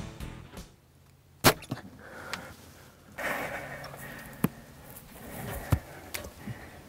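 Mathews Z7 compound bow shot once about a second and a half in: a single sharp snap of the string release. Afterwards a few small clicks and soft hushed sounds.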